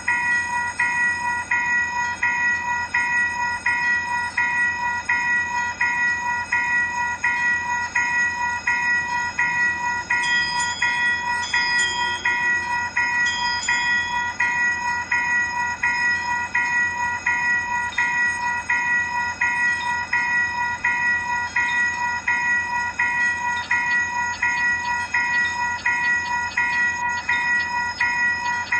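Railroad crossing warning bell ringing in a steady, even rhythm, about two strikes a second, with a ringing tone that carries between strikes. A few brief higher tones join around ten to fourteen seconds in.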